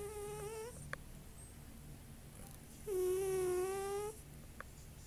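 Really loud snoring: pitched, whistling snores with a breathy hiss. One snore ends just under a second in, and another starts about three seconds in and lasts just over a second. A faint click comes twice in the pauses.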